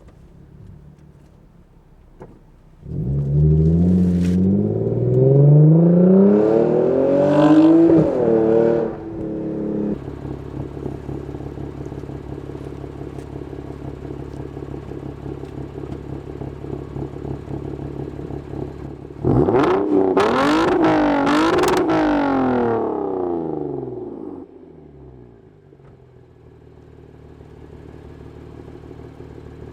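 Lexus IS250's 2.5-litre V6 through a freshly installed Invidia RC350 aftermarket exhaust, really loud. After a quiet idle it climbs sharply in revs for several seconds and settles into a steady lower note. About two-thirds of the way through it climbs again, then drops back to a low idle.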